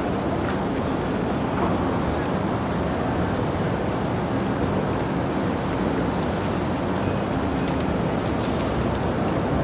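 Steady city street noise with a low traffic hum, around a large flock of feral pigeons; a few short wing flutters come near the end as birds take off.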